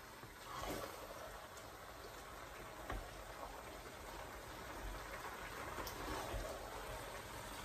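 Thick okra soup being scooped from a cooking pot into a ceramic bowl with a wooden spoon: soft wet scraping and a few light knocks, over a faint steady hiss.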